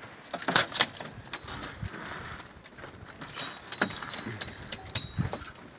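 Scattered clicks and knocks of pigeons shifting about in their cage, with a few short high-pitched squeaks in the second half.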